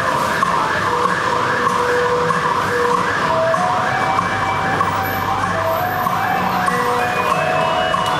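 Partner-dance music from a loudspeaker: a warbling figure repeats about three times a second over a melody of held notes.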